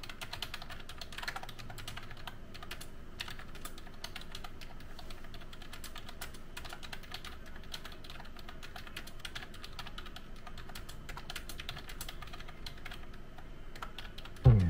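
Typing on an Ajazz 308i wireless Bluetooth keyboard with round keycaps: a steady run of quick, irregular key clicks. A brief, louder rising sound cuts in at the very end.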